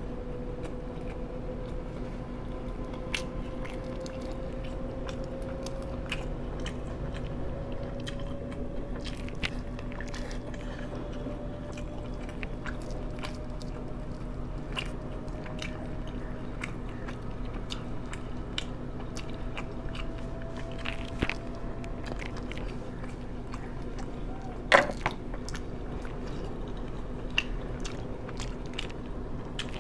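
A person chewing and biting into food close to the microphone, with scattered crisp crunches and one louder click near the end, over a steady low background hum.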